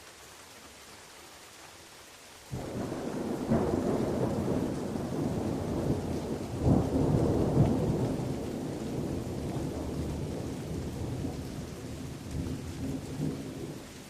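Steady rain falling, with a thunderclap breaking in suddenly about two and a half seconds in. It rumbles on with several louder cracks, then slowly dies away near the end.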